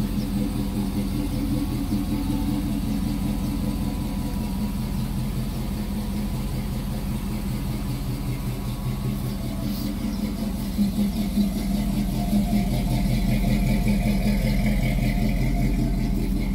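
A 1985 Chevy C10's Vortec 350 small-block V8 idling steadily through headers and a true dual exhaust with an X-pipe, getting a little louder in the second half.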